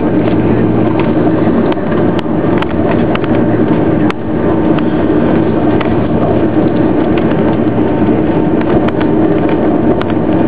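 Boeing 737 jet engines running as the airliner taxis after landing, heard inside the cabin as a loud, steady hum and whine, with a few faint ticks from the cabin.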